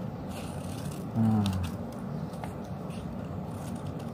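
Scissors snipping and rustling through bond paper in short, faint cuts, with a brief voiced murmur about a second in.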